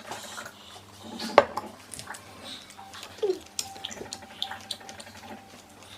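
Tableware clinking and knocking during a meal: scattered sharp clicks of cutlery against plates, the loudest knock about a second and a half in.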